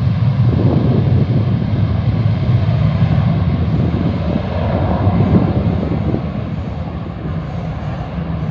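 Airplane engine running steadily, easing slightly near the end.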